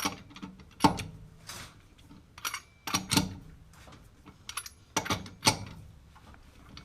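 Socket wrench clinking on wheel lug nuts as each nut is checked for tightness: a series of sharp metallic clinks at irregular intervals.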